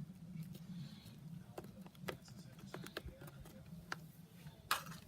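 Scattered light clicks and taps over a low steady background hum, with a louder rustling burst near the end.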